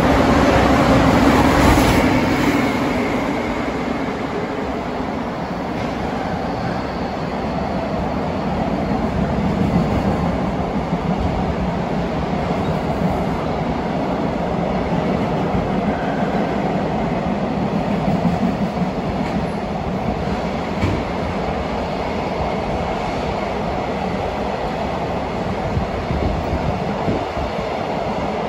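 A freight train hauled by a JR Freight EF510 electric locomotive passing close by, loudest in the first two seconds, then a long train of container wagons rolling steadily past with wheels clicking over the rails.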